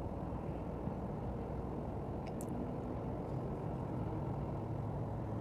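Steady low rumble with a faint hum, heard from the deck of a cruise ship, with a brief faint high chirp about two and a half seconds in.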